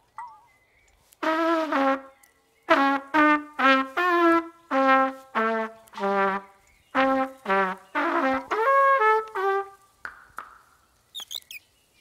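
A trumpet-like brass sound plays a halting tune of many short, separate notes at changing pitches, standing for the watering can blown like a horn. A few thin, high chirps follow near the end.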